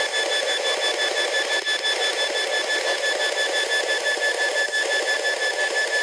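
P-SB11 spirit box sweeping AM and FM radio stations, giving a steady rush of radio static with a faint pulsing high tone.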